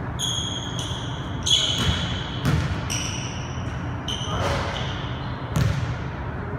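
Basketball bouncing on a hardwood gym floor, a handful of irregularly spaced bounces echoing in the hall, with short high-pitched sneaker squeaks as the player cuts and changes direction.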